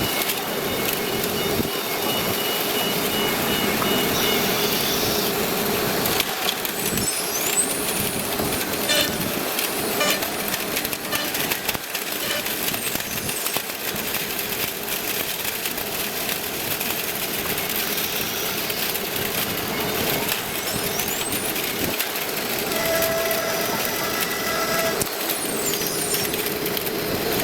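CNC router machine running: steady workshop machinery noise with a constant hum, a few held tones that come and go, and brief rising and falling whines.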